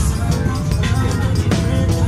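Music with a heavy bass and a steady beat.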